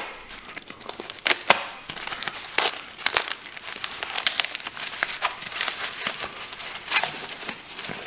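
A soft white packaging bag being opened and crumpled in the hands: irregular crinkling with scattered sharp crackles.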